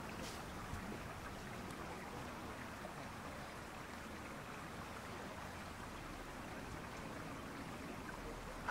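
Steady, faint outdoor ambience: an even rush of noise with no distinct events.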